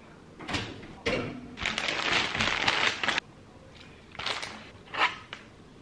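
Thin clear plastic bag crinkling and rustling for about two seconds, with a few short sharp knocks before and after.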